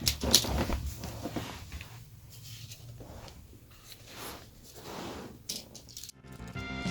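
Handling noise: scattered clicks, taps and rustles of a camera being picked up and a plastic toy car and track being handled. Background music starts near the end.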